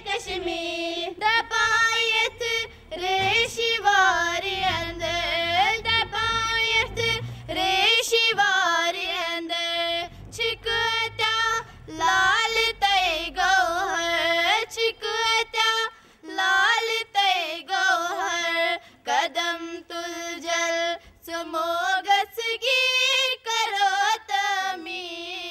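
A group of schoolgirls singing a song together, unaccompanied, in sustained phrases with short breaks for breath between them.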